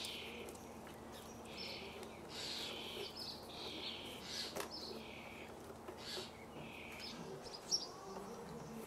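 Small birds chirping in short repeated calls, with a sharp click about halfway through.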